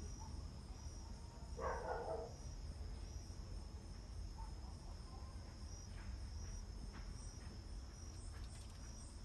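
Insects chirring steadily in a high, evenly pulsing trill, with one short, louder sound about two seconds in.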